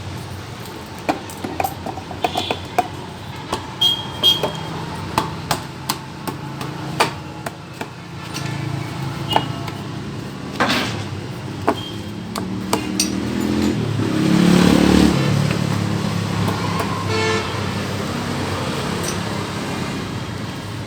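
Repeated sharp metallic knocks and clinks of hand tools working on motorcycle engine parts, over a steady hum of traffic. A motor vehicle passes, loudest about two-thirds of the way through.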